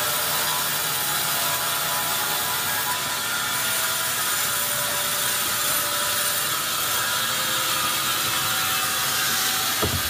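Band sawmill blade cutting lengthwise through a large pine log on the carriage: a steady, even sawing hiss over the running mill machinery.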